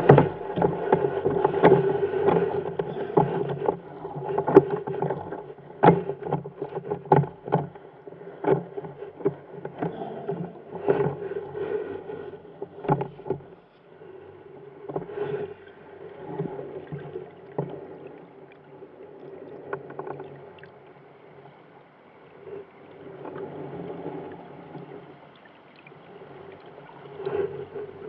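Muffled underwater sound heard through a camera housing: irregular knocks and clicks over a rushing of moving water, more frequent in the first half, as a spear works at the sandy seabed and stirs up sand.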